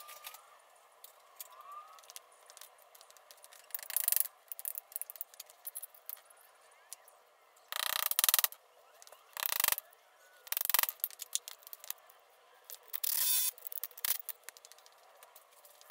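Hammer blows and several short bursts from a Ryobi cordless impact driver, which is running the nuts down on concrete wedge anchors through a galvanized steel post base. Small metal clinks come in between.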